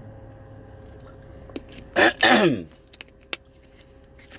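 A man clears his throat about two seconds in, a short loud vocal sound that slides down in pitch. A few light clicks come around it, with one sharp click near the end.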